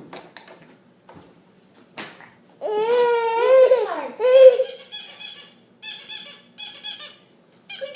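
A baby's loud, wavering squeal lasting about a second and a half, starting about two and a half seconds in, followed by a string of short high-pitched bursts, like giggles, spaced a fraction of a second apart.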